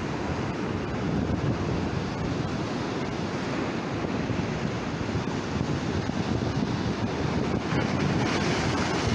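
Gulf of Mexico surf rolling in and breaking against large rock blocks, with wind buffeting the microphone. Near the end a wave crashes against the rocks with a louder, hissing splash.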